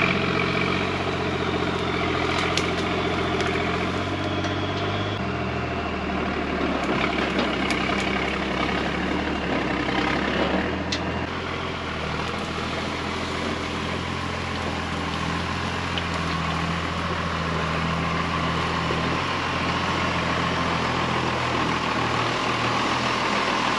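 Heavy truck engine running as the truck drives slowly through brush. Its pitch steps down about five seconds in and stays steady, with a few sharp cracks in the first half.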